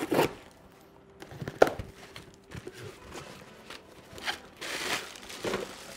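A cardboard box being opened and its packaging handled: irregular tearing and crinkling, with a sharp knock about one and a half seconds in.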